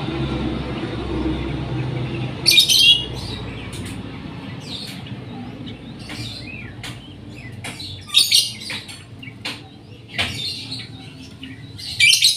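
A songbird chirping and calling in short, loud bursts of quick high notes, with single chirps between them. A low rumble fades out over the first few seconds.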